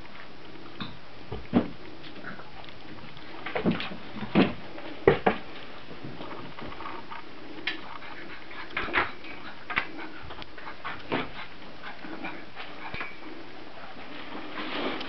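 32-day-old Brittany puppies at play: scattered knocks and scuffles, the loudest in the first half, with a few short puppy whimpers later on.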